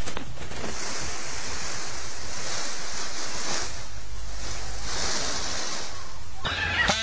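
Steady rushing noise, like wind blowing on the microphone, with a hiss strongest in the high range and a brief change near the end.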